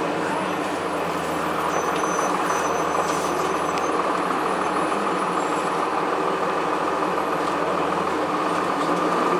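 Interior running noise of a Blue Bird CS transit bus with a Cummins ISC inline-six diesel engine, steady throughout, with a steady high whine. A few faint squeaks or rattles are heard in the first few seconds.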